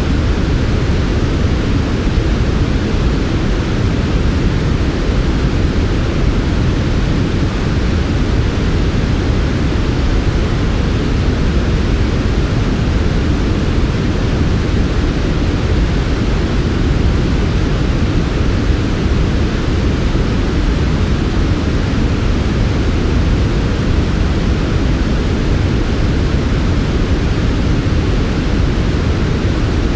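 Smooth white noise for sleep: a steady, unchanging hiss weighted toward a deep low rumble, with a softer hiss above and no breaks or changes in level.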